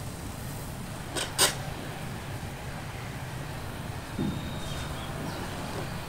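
Building-site ambience: a steady low engine-like hum, broken by two sharp knocks close together about a second and a half in and a duller thump around four seconds.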